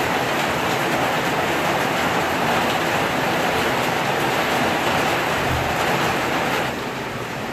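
Steady rain falling on the roof of a wooden hut, a dense even hiss that drops a little in level near the end.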